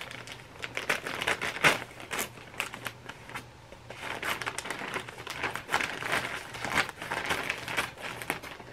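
White plastic mailer bag crinkling and crackling in irregular strokes as it is cut open with scissors and pulled apart. The crinkling is busiest in the middle of the stretch.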